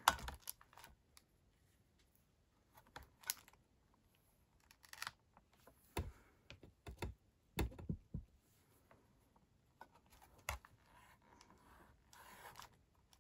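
A few soft knocks and taps from a plastic stamping platform and its clear lid as they are handled and pressed down, scattered among light rustling of card stock. The clearest knocks come about halfway through, and there is brief rustling near the end.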